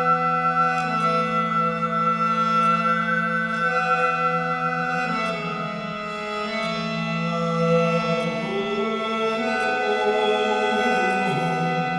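Sound-healing music: a sustained low drone of held tones with a bright overtone ringing high above it, the notes shifting every few seconds.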